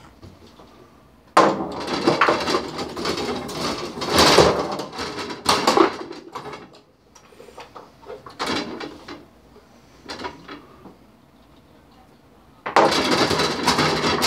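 Foosball game in play: metal rods sliding and spinning, the plastic players and ball clacking against the wooden table. The clatter starts abruptly and loud about a second and a half in, thins to scattered knocks, and starts again loud near the end.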